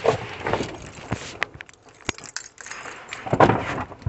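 Car keys jangling, with scattered light clicks and rustling; a louder rustle comes about three and a half seconds in.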